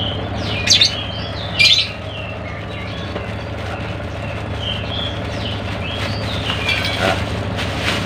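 Small birds chirping and calling again and again, over a steady low hum. About a second apart near the start come two short, louder crinkles as a black plastic bag is twisted shut by hand.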